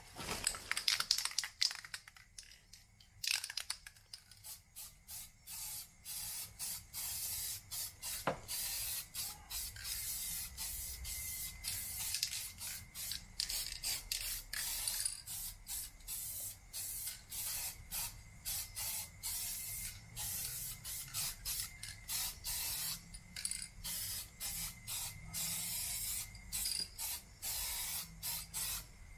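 Aerosol spray-paint can hissing in many short bursts with brief gaps between them.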